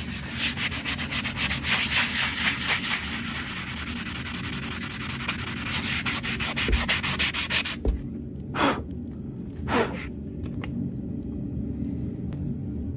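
Hand sanding of a horse's hoof wall with a sanding pad: rapid back-and-forth abrasive strokes, several a second, as the shod hoof is smoothed and finished. The strokes stop about eight seconds in, followed by two short swishes about a second apart.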